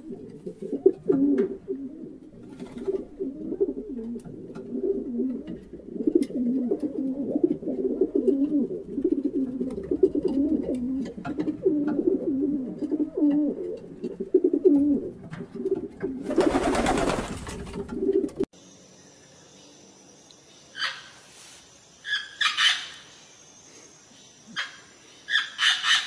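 Rock pigeons cooing over and over in low, wavering coos, with a brief rushing noise near the end of the cooing. The sound then changes abruptly to a few short, higher parrot calls with pauses between them.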